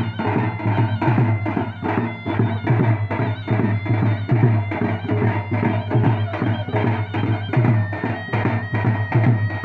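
Traditional folk band playing: fast, dense drum strokes under a shrill, reedy wind instrument holding long, steady notes.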